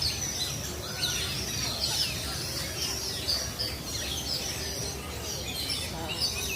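Several birds chirping, a busy mix of short high chirps and quick falling calls, over a steady low background hum of an outdoor crowd area.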